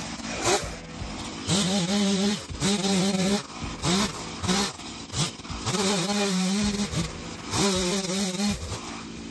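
An engine revved in about five short bursts. Each burst rises quickly and holds a steady pitch for under a second before dropping off.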